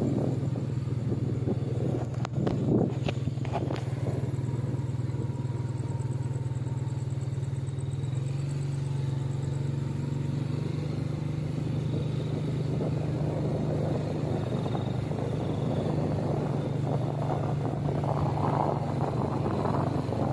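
Small motorcycle engine running steadily as it rides along, with wind noise on the microphone. A few sharp clicks come about two to three seconds in.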